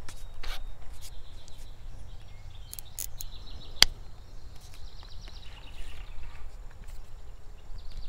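Outdoor river-bank ambience: a low steady rumble with short runs of rapid high chirping ticks, and one sharp click a little under four seconds in.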